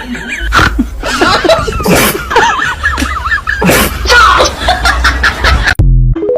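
A cat making a rapid run of short chirping, wavering calls mixed with noisy huffs, cut off abruptly near the end.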